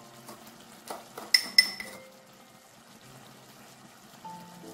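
A metal spoon clinking twice against a stainless steel saucepan as sugar is spooned in, two sharp ringing clinks about a second and a half in after a few lighter clicks. Soft background music plays underneath.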